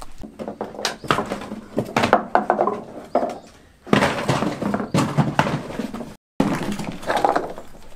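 Loose golf balls clattering against each other and into cardboard boxes as they are scooped up and dropped in, a dense run of quick clicks and rattles. The sound cuts out suddenly for a moment about six seconds in.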